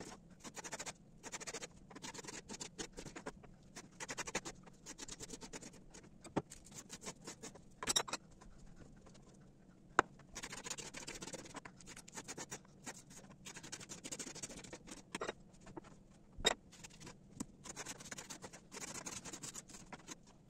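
Kitchen knife chopping vegetables on a wooden cutting board: quick runs of light taps broken by short pauses, with a few sharper single knocks.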